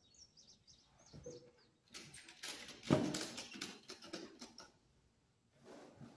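Ratchet strap being handled over a load: the webbing rustling and its metal ratchet and hook clattering, with one sharp clack about three seconds in. A bird chirps rapidly in the first second.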